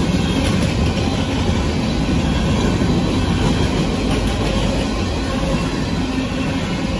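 Freight train of covered hopper cars rolling past at a grade crossing: steady noise of steel wheels running on the rails.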